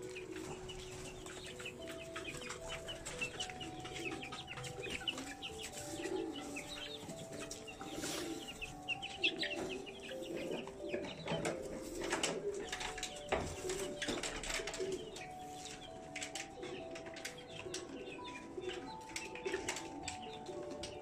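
Pigeons cooing, with a stream of quick high bird chirps and a few sharp knocks.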